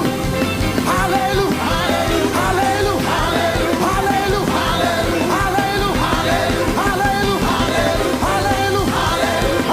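Live worship band playing an upbeat praise song, loud and steady, with voices singing along over it.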